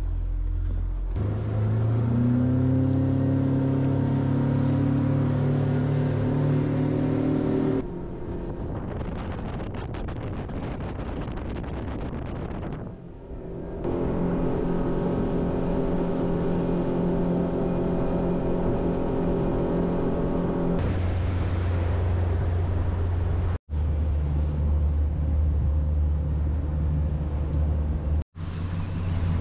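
Fishing boat's outboard motor accelerating about a second in, then running steadily at speed, easing off and picking up again in the middle. Later it drops to a low, slow running hum, with two brief sudden breaks in the sound near the end.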